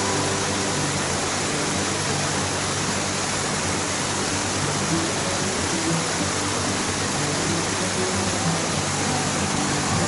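White-water river rapids rushing in a steady, loud hiss, with faint music beneath.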